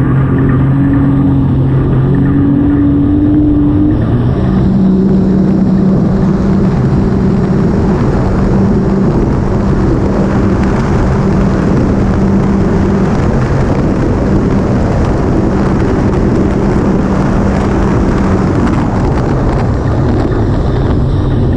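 Engine of a small motorized watercraft running under way, with wind and water rushing past. Its note climbs a little and then drops to a lower steady pitch about four seconds in, holding there until near the end.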